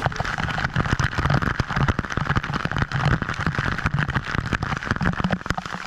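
Water splashing and bubbling, a steady dense crackle with a low pulsing beneath.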